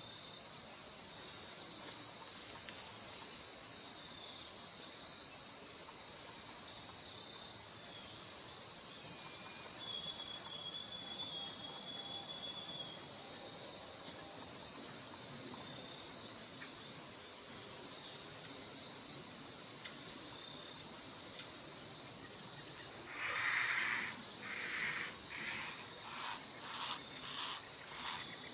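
Crickets trilling steadily. Near the end a run of short splashes comes in as a great blue heron works a large fish in the shallow water.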